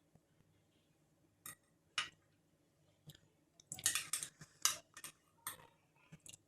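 A spoon clinking and scraping in a bowl of yogurt and cereal while someone eats: a series of short, irregular clinks, busiest a little past the middle.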